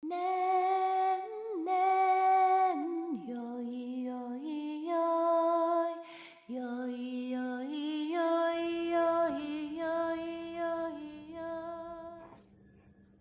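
A woman humming a slow, lullaby-like melody in long held notes; it stops about a second before the end.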